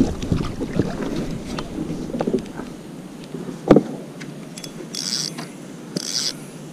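Handling noise aboard a plastic fishing kayak: rustling, small clicks, and one sharp thump against the hull a little past halfway, followed by two short hisses.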